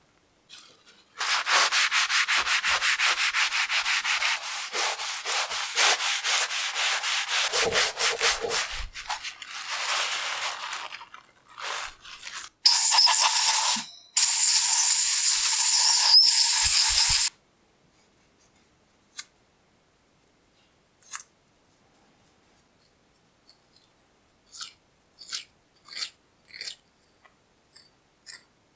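Blue paper shop towel wet with silicone remover rubbed hard back and forth over the bare metal vise parts to degrease them, in many quick strokes for about ten seconds. This is followed by a loud steady hiss in two bursts, about one and three seconds long, and near the end by light scrapes of a blade on metal.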